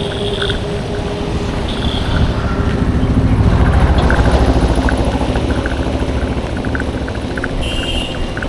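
Road traffic: a motor vehicle's engine rumble swells about three seconds in and eases after five seconds, as if passing close. Light rapid ticking runs throughout.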